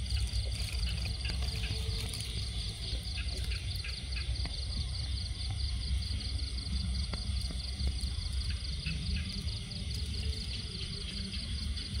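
Crickets chirping at night in a steady, fast pulsing trill, over a constant low rumble.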